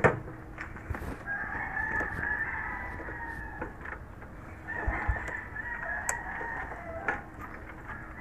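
A sharp knock at the very start, then a rooster crowing twice, two long crows a little over a second apart.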